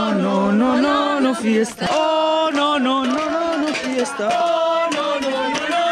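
A man singing a melody with music behind him, the sung line bending up and down with short breaks between phrases.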